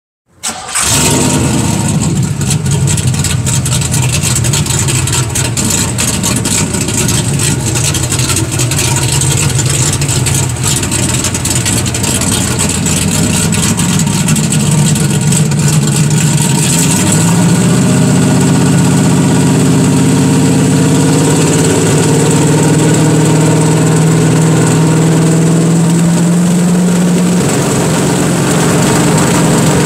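1969 Chevrolet Camaro Z/28's 302 small-block V8 running at idle with a rough, uneven note. A little past halfway it steps up to a higher, steady engine speed and holds there.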